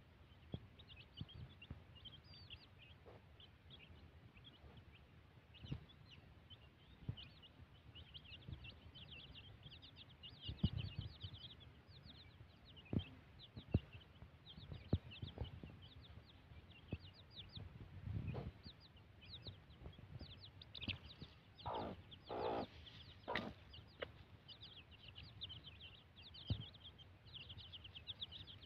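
A brood of young chicks peeping continuously, many short, high, falling cheeps overlapping. About two-thirds of the way through, the mother hen clucks a few times, louder and lower than the chicks, with scattered soft knocks from the pecking underneath.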